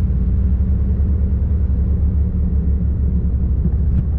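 Steady low rumble of a side-by-side UTV's engine and drivetrain while it drives along a dirt trail, heard from on board.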